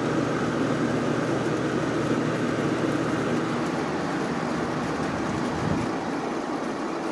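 Hotpoint Port-A-Cool window air conditioner's fan running steadily in fan-only mode with the compressor off, a loud, even whooshing hum.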